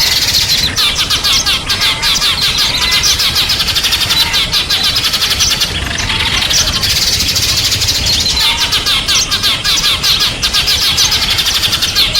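Small songbirds chirping in a dense, rapid stream of short high notes, several at once, with two brief lulls.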